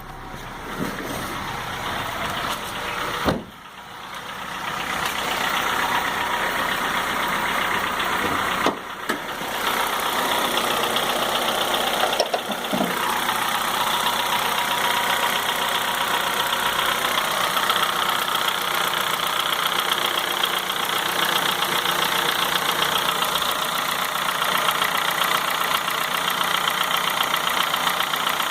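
Honda Fit 1.4 petrol engine idling at operating temperature, heard close up with the hood open, with a couple of short bumps in the first dozen seconds. The engine carries a noise the owner finds abnormal and calls a sawing sound.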